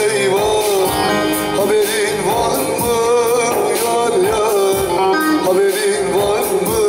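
Man singing a Turkish folk song (türkü) in a strong voice with a wavering, ornamented melody, accompanied by a strummed bağlama (long-necked saz) in a steady rhythm.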